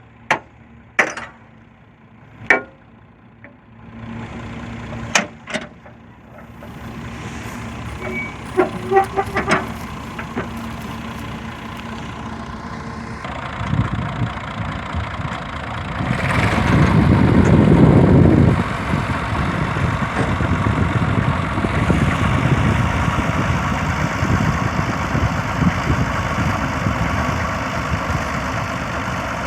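Massey Ferguson 385 tractor's diesel engine, with the chopper blower it drives, building up from quiet to a steady working run. The run is loudest about halfway through, after a handful of sharp knocks in the first few seconds.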